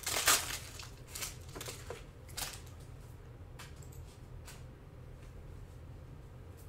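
Crinkling and rustling of a foil trading-card pack and its cards being handled, loudest in the first half-second. A few lighter clicks and rustles follow, and then it tapers off to a low steady hum.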